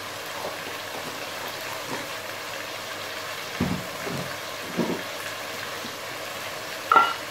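Steady hiss of chicken cooking in a steel pot on a gas stove, with a few light knocks and a short clink as spice jars are handled, the last one the loudest.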